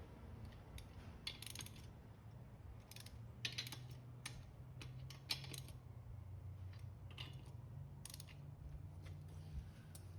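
Faint metallic clicking in short irregular runs, from a ratchet wrench on the wheel's lug nuts as the tire goes back on, over a low steady hum.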